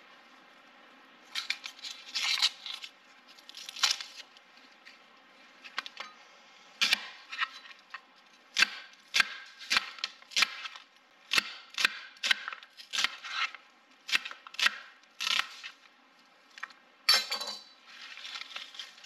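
Kitchen knife chopping vegetables: a run of sharp knocks, about two a second through the middle, with rustling scrapes near the start and end.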